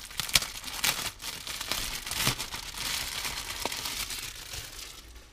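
A clear plastic bag being opened and crinkled by hand, with many small crackles and a few sharper snaps, the rustling easing off towards the end.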